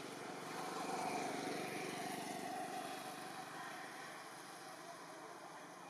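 A motor vehicle passing on the road, its engine and tyre noise swelling to its loudest about a second in and then slowly fading.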